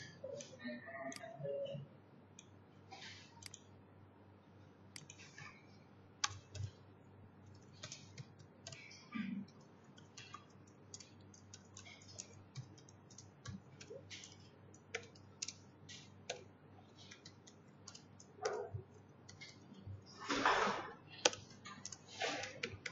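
Typing on a computer keyboard: irregular key clicks in short runs, heaviest near the end.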